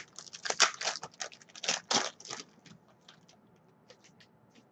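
Foil wrapper of a trading-card pack being torn open and crinkled in quick bursts for about two and a half seconds, then a few faint clicks as the cards are handled.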